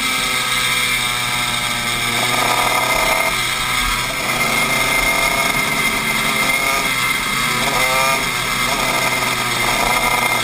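Honda 125cc two-stroke shifter kart engine at racing speed, heard from onboard. Its pitch rises and falls as the driver accelerates and lifts, with a clear rising sweep about eight seconds in.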